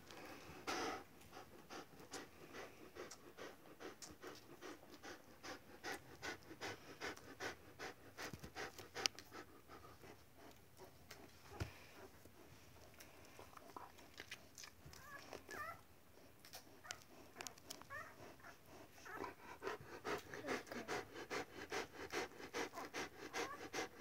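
Akita Inu dog panting in a fast, steady rhythm of short breaths, several a second, with a few faint high squeaks in the second half.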